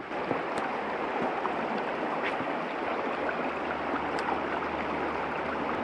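Small mountain trout stream running over a shallow, rocky riffle: a steady rush of water.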